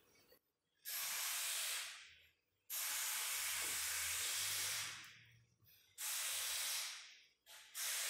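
Loud hissing in four bursts, each lasting from about one to two and a half seconds, each starting suddenly and tailing off, with a short fifth burst at the very end.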